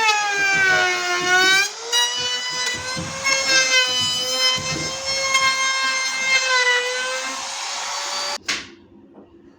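Handheld electric power tool whining at high speed as it rounds over the edges of a wooden bass speaker cabinet, its pitch sagging under load and picking back up several times. It switches off with a click near the end.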